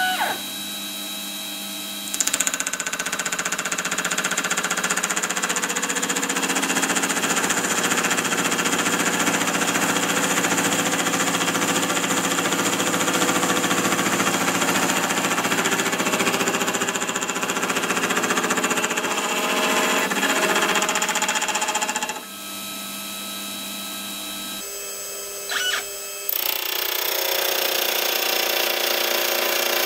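Milling spindle's gear cutter cutting teeth into a metal gear blank, with loud, steady cutting noise over the running motor. The cutting starts about two seconds in, stops about 22 seconds in while the spindle runs on more quietly, and resumes near the end.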